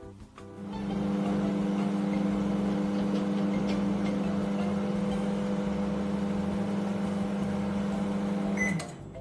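Panasonic inverter microwave oven running, a steady hum that starts about half a second in and cuts off near the end with a short high tone.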